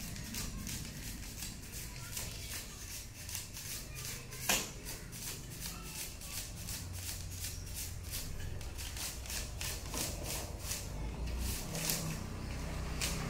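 Rapid rustling and scraping strokes, several a second, from hands working electrical wire, with one sharper click about four and a half seconds in.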